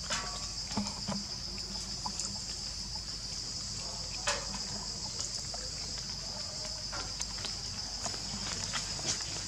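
Steady high-pitched drone of insects, with a few faint scattered clicks and taps.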